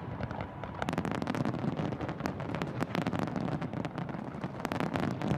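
Fireworks going off: a fast string of sharp bangs and crackles over a low rumble, growing denser about a second in.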